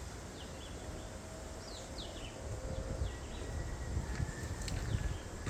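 Small birds chirping, a few short notes sliding downward in pitch, repeated every second or so, over a low outdoor rumble that grows stronger in the second half.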